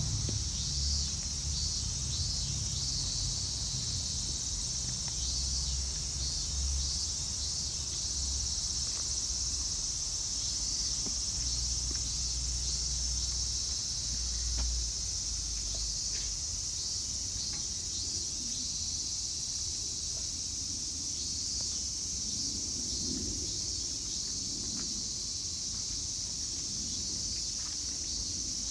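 Steady, high-pitched chorus of singing insects, with a low rumble through roughly the first half.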